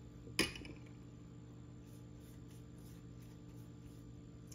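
One sharp tap about half a second in, over a steady low hum, with faint handling of an egg roll wrapper as it is folded and brushed with cornstarch water.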